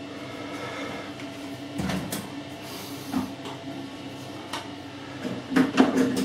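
Several knocks and clatters of objects being handled and set down, loudest in a quick cluster near the end, over a steady low hum.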